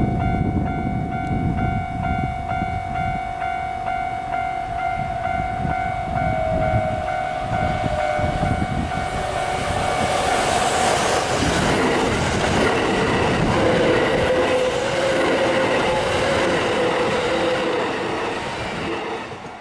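Kintetsu 22000 series limited-express electric train approaching and passing at speed, the wheel-and-rail noise spreading and growing from about halfway as the cars go by close. A steady high tone with a regular pulse sounds behind it.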